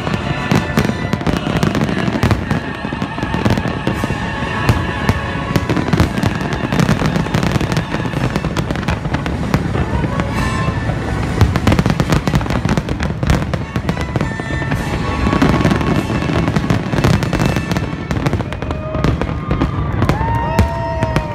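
A large aerial fireworks display: shells bursting in rapid, overlapping bangs and crackles, nearly continuous, over a steady low rumble.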